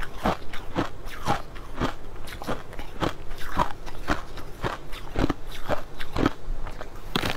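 Finely crushed ice being bitten and chewed close to the microphone: a quick, irregular series of crisp crunches, about two or three a second.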